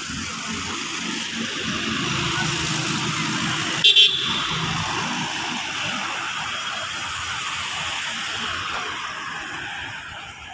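Road traffic passing: cars and a motorcycle going by with steady tyre and engine noise that swells and fades. About four seconds in a car horn gives two quick short toots.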